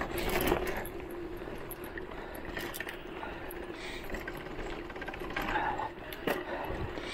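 Voltbike Enduro electric mountain bike's motor whining at a steady pitch under pedal assist, over the rumble of tyres on a bumpy dirt trail. The bike rattles, with sharp knocks from the bumps near the start and about six seconds in.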